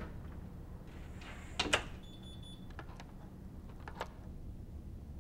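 A door shutting with a clunk and then being locked with a lighter click, over a steady low room hum; a short high electronic beep follows just after the clunk.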